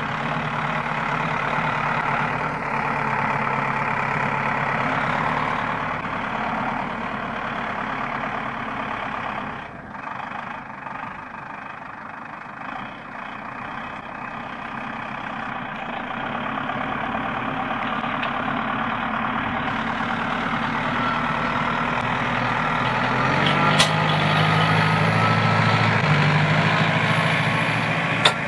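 Diesel engine of a Zetor Forterra 140 HSX tractor working under load as it pulls tillage implements through the soil. The engine grows louder in the last few seconds as the tractor passes close by.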